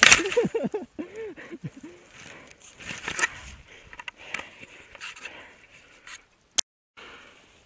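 A sapling creaking and crackling under a man's weight as he tries to bend and break it, with a sharp crack at the start, then brush scraping and twigs snapping.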